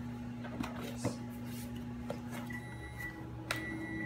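Cardboard box of squishy sand being handled and opened by hand, a few light clicks over a steady low hum.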